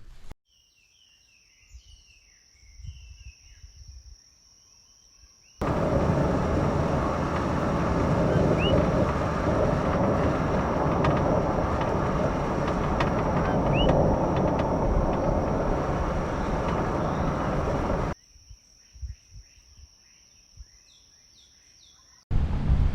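Loud, steady rush of river water running over rapids, starting and stopping abruptly at cuts, with a couple of short bird chirps over it. Before and after it are quieter stretches of outdoor ambience with a steady high-pitched insect drone.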